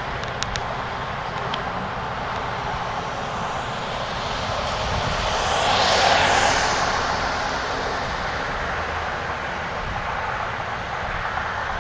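A vehicle passing by, its noise swelling to a peak about six seconds in and then fading, over a steady background rumble of traffic.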